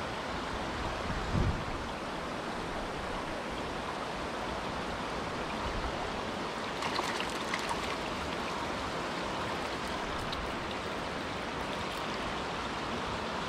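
Steady rush of running creek water, with a soft thump just over a second in and a few faint ticks around seven seconds in.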